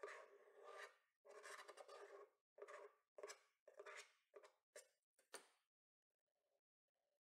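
Metal utility scraper blade scraping excess plumber's putty from around a sink drain flange in a stainless-steel sink: about eight short scraping strokes, the first ones longer, stopping a little over halfway through, with only faint rubbing after.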